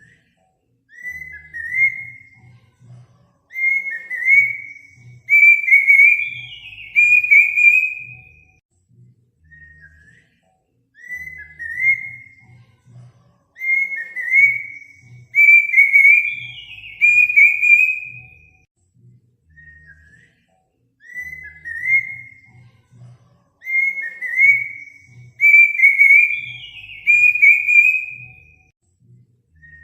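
Recorded bird song played on a loop: a phrase of clear whistled notes that come faster and climb, ending in a falling whistle, repeated identically about every ten seconds.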